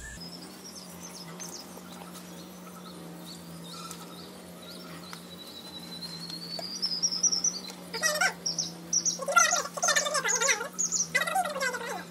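Birds calling: faint high chirps and a rising whistle at first, then a run of loud, irregular calls over the last four seconds, over a steady low hum.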